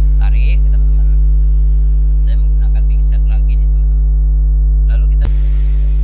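Loud, steady electrical mains hum, with a few faint small ticks and one sharp click about five seconds in.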